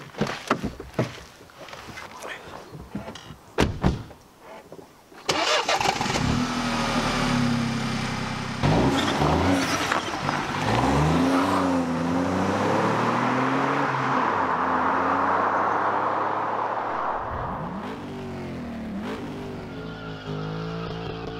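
Car doors opening and shutting with a few knocks, then a Mini five-door hatchback's engine starts about five seconds in and the car pulls away. Its note rises and drops several times through gear changes as it accelerates along the road and fades.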